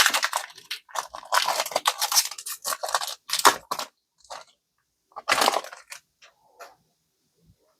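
Foil booster pack wrapper crinkling and tearing as a Pokémon card pack is ripped open: a dense run of crackly rustles for about four seconds, then one more short burst a little after five seconds.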